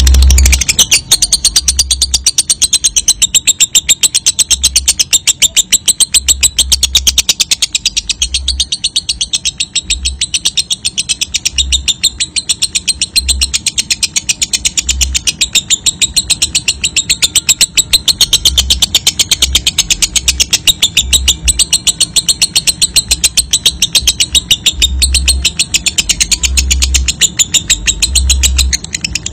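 Lovebird's long ngekek song: a very fast, high-pitched chatter that runs on without a break. It is the kind of long-chattering song played as a lure to set other lovebirds singing.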